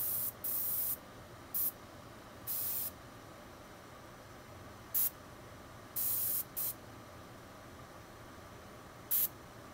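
Gravity-feed airbrush spraying paint in about eight short, irregular hisses, the longest about half a second: quick trigger pulls for fine detail on the nostrils of a frog lure.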